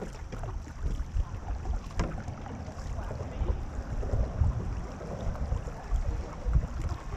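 Wind rumbling on the microphone over the swish and splash of paddles stroking through the water from a moving marathon racing canoe.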